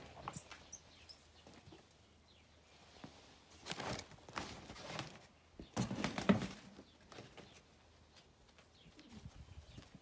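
Scuffing footsteps on paving stones and dirt in a few short bursts, with scattered small ticks.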